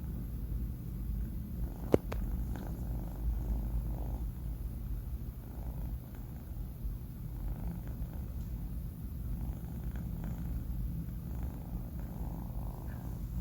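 Sleeping kitten purring, a low steady rumble with soft breaths every second or two; a single sharp click about two seconds in.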